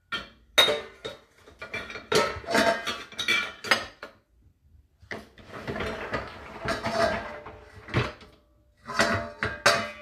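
Metal pots, stainless steel bowls and the wire racks of a dishwasher clattering and clinking as they are handled. The knocks are irregular and ring briefly, coming in bunches with short pauses, the loudest about half a second in.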